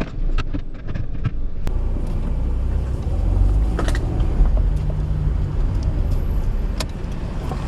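Low rumble of car engines and traffic, swelling about three to four seconds in as a vehicle passes close, with a few faint clicks.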